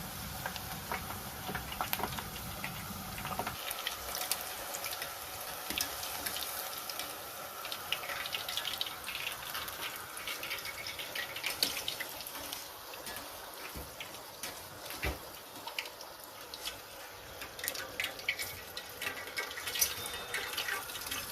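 Chicken green curry simmering in a pot, its thick coconut-milk sauce bubbling with many small irregular pops over a steady hiss.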